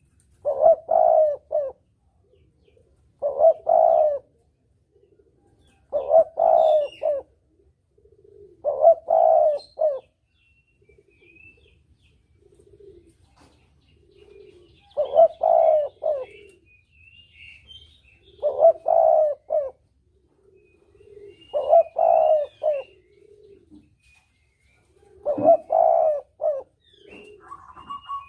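Spotted dove (tekukur) cooing in repeated phrases of a few quick notes, about every three seconds, with a pause midway. Fainter low coos sound between the phrases, and faint high chirps of small birds sit in the background.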